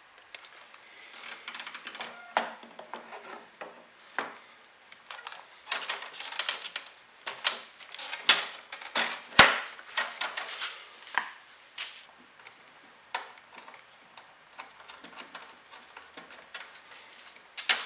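Hard plastic battery housing being handled and fitted onto a lawnmower handle: irregular clicks, knocks and scrapes of plastic against the handle, with one sharp click about nine seconds in.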